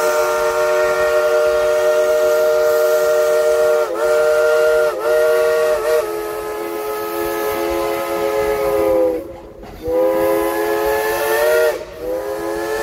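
Dollywood Express steam locomotive's whistle sounding a chord of several tones. It gives one long blast with three brief dips in it, then after a short break a second blast and a short third one near the end.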